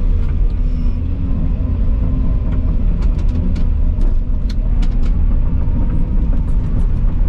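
Volvo EC220 excavator's diesel engine running steadily while the machine travels, with a few light clicks scattered through the middle.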